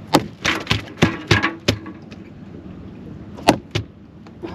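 A halibut being clubbed to stun it: a quick run of about seven sharp whacks in under two seconds, then two more about three and a half seconds in.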